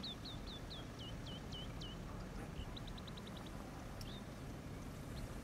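A bird calling: a run of short down-slurred whistles for the first two seconds, then a quick burst of rapid high notes about halfway through, over a steady low background rumble.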